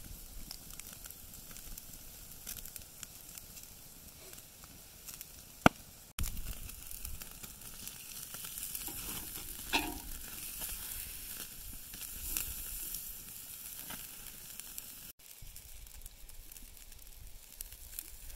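Prime rib steaks sizzling as they sear over a campfire grate and then in a pan of melted butter, with a steady hiss and a light crackle of the fire. A sharp click comes about six seconds in, and a short metallic knock near the middle as the tongs move the meat.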